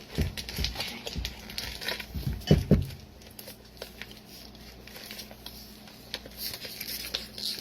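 Plastic meat packaging being handled and pulled off: scattered crinkles and clicks, with two dull thumps about two and a half seconds in, then quieter handling.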